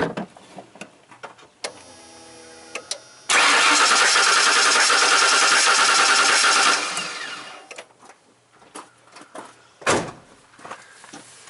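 Starter cranking a Ford 5.8 L Windsor V8 for about three and a half seconds without it firing, throttle held wide open in clear-flood mode, for a compression test on cylinder 7. The cranking starts abruptly and dies away as the engine spins down; a single knock follows near the end.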